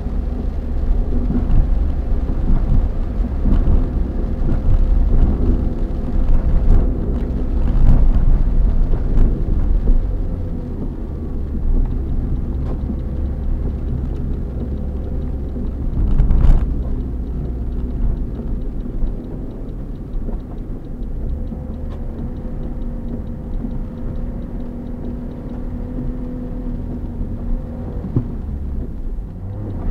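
Camper van cab noise while driving on a wet road: a low rumble of engine and tyres with a steady engine drone. It is louder at first and eases off after about ten seconds as the van slows, with a single short knock around the middle.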